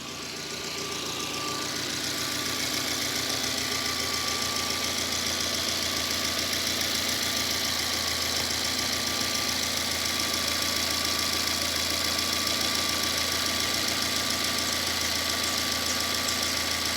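Renault Sandero 1.0 16v four-cylinder engine idling steadily; it grows louder over the first two seconds, then holds an even note.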